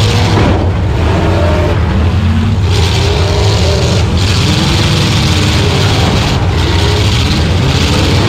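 Demolition derby car's engine running loud and revving up and down, heard from inside the stripped-out cabin.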